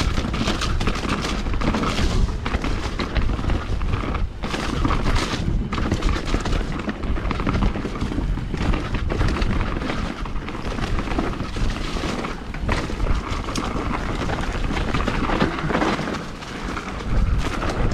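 Mountain bike ridden fast down a rough dirt trail: continuous tyre and wind noise, with frequent knocks and rattles as the bike hits bumps, and wind buffeting the microphone.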